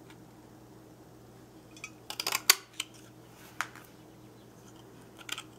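Large handheld oval craft punch pressed down through white paper: a quick cluster of clicks ending in a sharp snap about two and a half seconds in, then a couple of lighter clicks as the punch is handled afterwards.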